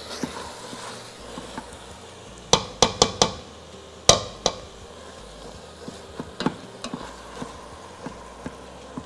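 Ground beef sizzling as it browns in the stainless-steel inner pot of an electric pressure cooker. A silicone spatula scrapes along the pot and knocks against it, with a cluster of sharp knocks a few seconds in.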